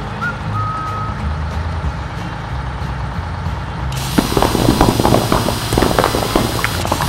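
Cartoon truck engine sound effect running with a low rumble, with a short beep near the start. About four seconds in, a dense rapid crackling and crunching of rock takes over as the truck's drill bores into the rubble.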